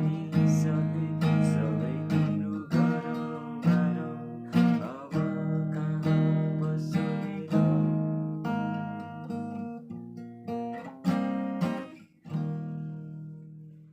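Acoustic guitar strumming chords in a slow pattern that gradually gets quieter; after a short break near the end, one last chord rings out and fades away.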